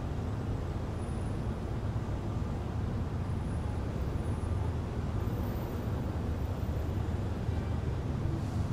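Steady urban ambience: a low, even rumble of distant traffic with a light hiss above it.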